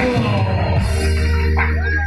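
Band music with drums and a steady held bass note and chord ringing.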